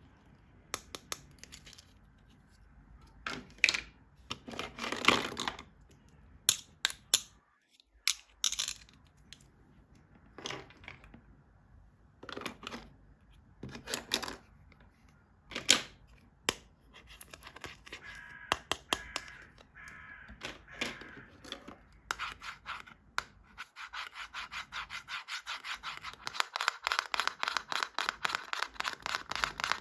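Toy packaging being handled and opened: scattered taps, scrapes and short tearing sounds, then, from about two thirds of the way in, a long rapid rasping run of fine ticks like cutting or tearing.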